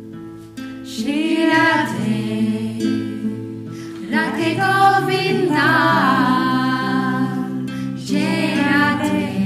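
Devotional song: singing voices in three long, wavering phrases over held accompanying notes.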